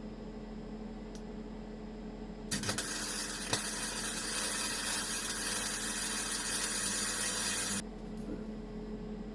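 Gasless flux-core MIG welder striking an arc about two and a half seconds in and running a bead for about five seconds: a steady crackling hiss with a few sharp pops at the start, cutting off abruptly. The welder hums steadily before and after the bead.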